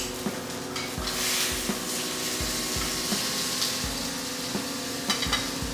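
Ribeye steak sizzling in a hot frying pan. The hiss swells louder for a couple of seconds about a second in, over a steady low hum, and a few sharp metallic clicks of cooking tongs come near the end.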